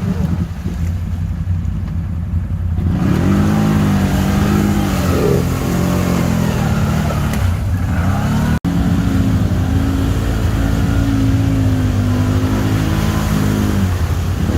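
ATV engine running under throttle, its pitch rising and falling as it revs, over a steady low rumble. The sound grows louder and brighter about three seconds in, and it cuts out for an instant past the middle.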